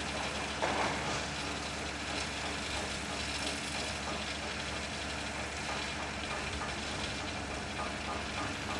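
A steady low engine hum over outdoor background noise, with a brief louder sound a little under a second in.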